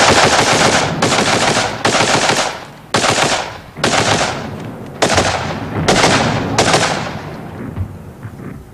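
Machine gun firing in short bursts of rapid fire, about eight bursts roughly a second apart, the last ones dying away near the end.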